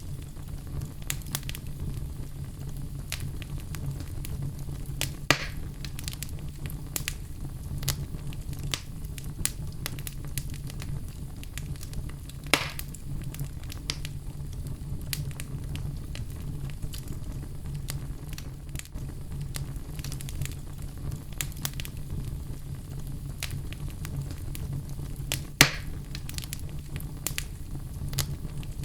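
Wood fire burning in a fireplace: a steady low rumble of the flames with frequent small crackles and three louder pops, about five seconds in, midway, and near the end.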